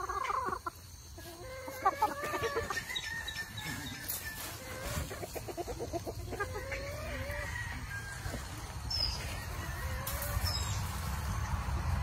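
Gamefowl chickens clucking: a series of short clucks with a few longer, drawn-out calls in between.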